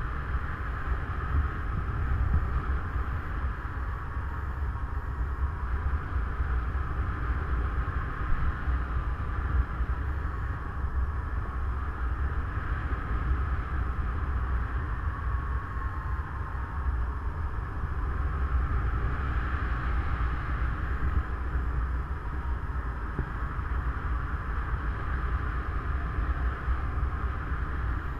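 Steady rush of flight airflow buffeting the microphone of a paraglider pilot's camera: a heavy low rumble with a hiss above it.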